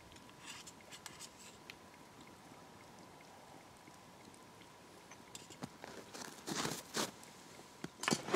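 Quiet scattered clicks, then a few louder rustling, crunching sounds near the end.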